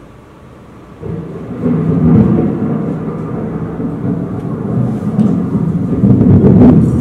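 Loud, deep rumbling stage sound effect that starts suddenly about a second in and carries on steadily.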